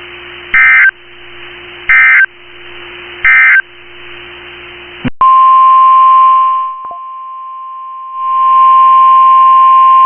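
Three short bursts of EAS/SAME digital data, the end-of-message signal, over weather-radio hiss and a low hum. About five seconds in, the NOAA Weather Radio 1050 Hz warning alarm tone starts, a loud steady tone that briefly drops away in the middle and comes back.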